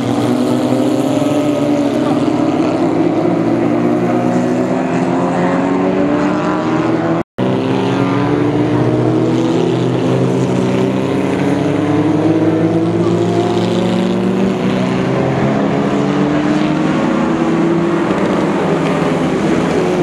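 Several FJ1600 formula cars accelerating hard past the trackside, their Subaru flat-four engines overlapping, each pitch climbing as the cars pull through the gears. The sound cuts out for a split second about seven seconds in.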